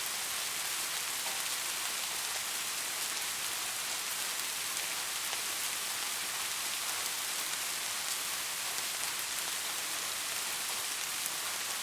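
Steady rain falling on a surface: an even hiss with fine drop ticks throughout.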